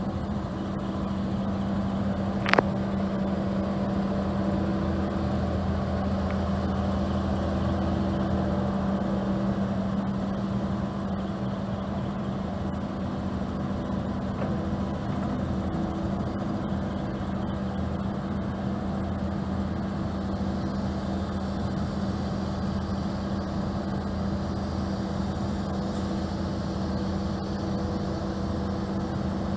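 2012 Kobelco SK210-9 excavator's four-cylinder Hino diesel engine running steadily while the hydraulics raise the boom, curl the bucket and swing the house. A single sharp clank comes about two and a half seconds in.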